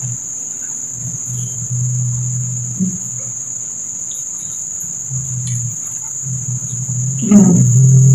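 Insects trilling steadily at a high pitch, with faint clicks from eating by hand. A low hum comes and goes, and a louder low drone starts near the end.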